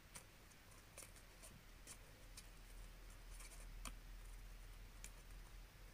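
Faint scratching and tapping of a highlighter on paper while colouring in letters, with a few sharp ticks spread through.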